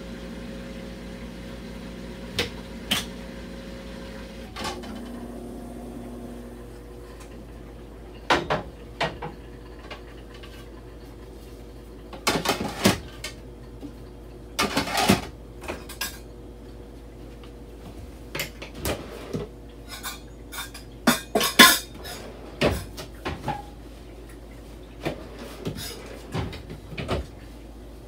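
Hava mini portable countertop dishwasher running its wash cycle: a steady motor hum, with irregular clicks and clinks of the dishes and silverware rattling inside. Part of the hum's tone drops out in the first few seconds.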